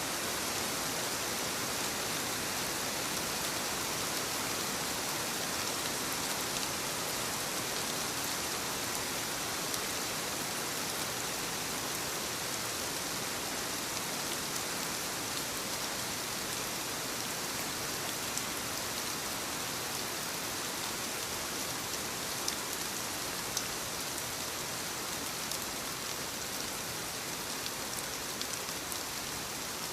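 Steady rainfall, an even hiss of rain with scattered individual drops pattering.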